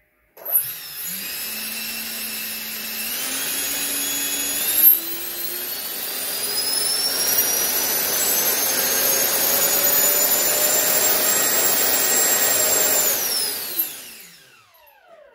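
Electric ducted fan running on a static thrust test stand: its whine steps up in pitch a few times, then climbs steadily as the throttle is opened. Near the end it is throttled back and winds down with a falling whine.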